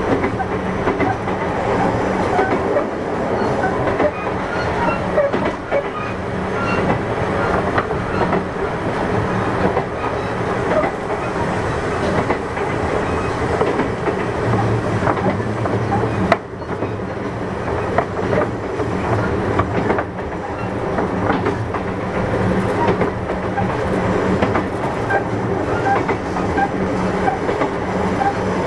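Kintetsu 6200-series electric train running, heard inside the car: a steady hum of the traction motors and wheels with the clickety-clack of wheels over rail joints. A sharp knock comes about sixteen seconds in, after which the sound briefly gets quieter.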